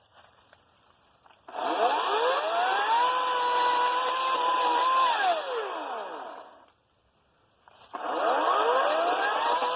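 Ryobi 40 V 14-inch battery chainsaw (RY40530) run twice on the trigger. Each time its motor and chain spin up with a rising whine, hold a steady high pitch, and on release wind down to a stop within about a second and a half. The second run starts near the end.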